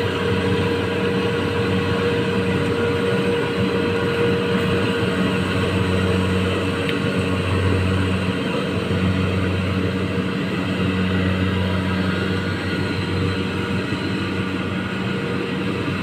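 Small rice combine harvester running steadily as it harvests, a constant engine drone with a steady hum, growing slightly fainter toward the end as the machine pulls away.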